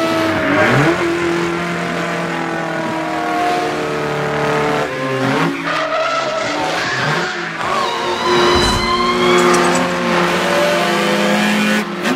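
Racing car engines at full throttle, several engine notes at once, each dipping sharply in pitch as a car passes about half a second in, again around five seconds in and near eight seconds. A high rising tyre squeal comes at about eight seconds.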